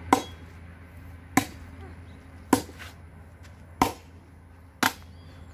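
Machete (corvo) blows chopping into a wooden log for firewood: five sharp strokes, evenly spaced about a second apart.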